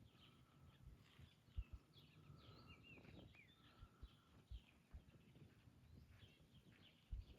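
Faint outdoor birdsong: many short chirps and whistles, some of them rising or falling, with a short steady note repeated several times. A few brief low thumps come through now and then.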